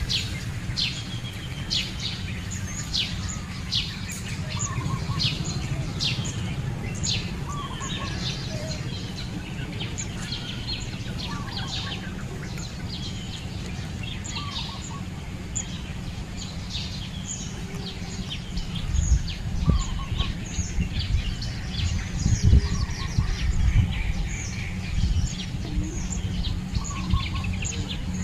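Birds chirping in quick, high, downward-sweeping notes, repeated again and again over a steady low rumble. The rumble grows louder and more uneven in the second half.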